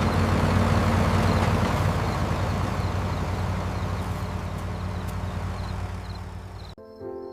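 A large engine running steadily, a low hum under a broad hiss, slowly fading and then cutting off sharply near the end.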